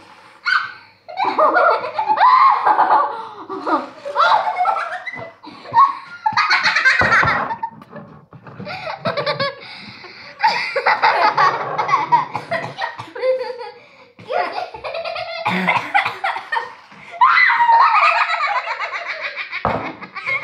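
Girls laughing hard in several long fits, one of them through a mouthful of whipped cream.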